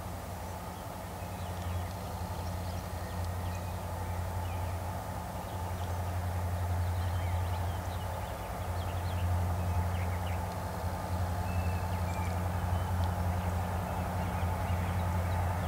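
Low steady hum of a distant diesel locomotive engine, slowly growing louder as the train approaches, with small birds chirping over it.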